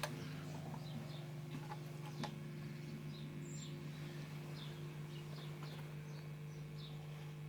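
Fender Sidekick Reverb 25 solid-state amp idling with a steady low mains hum, the guitar silent, and a single click about two seconds in. Faint bird chirps, short and high, repeat every half second or so from about three seconds in.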